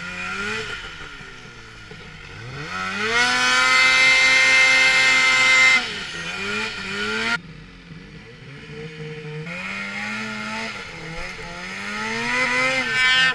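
Snowmobile engine revving hard: the pitch climbs and holds high for a few seconds, drops off suddenly about halfway through, then builds up again toward the end.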